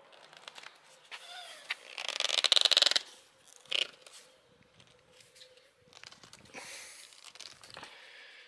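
Corrugated plastic pool hoses scraping and rubbing as they are twisted and pushed together over a makeshift adapter. The loudest part, about two seconds in, is a second-long run of rapid ribbed clicking as the corrugations drag against each other.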